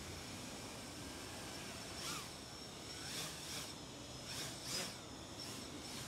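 FPV quadcopter hovering on 3D-printed eight-blade OCTOblade propeller hubs with DalProp folding blades: a steady faint whir with a thin high whine. From about two seconds in, the prop noise swells briefly about six times.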